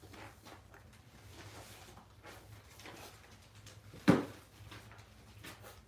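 Golden retriever puppies eating from metal bowls on a tile floor: faint small clicks and eating noises, with one sharp knock about four seconds in.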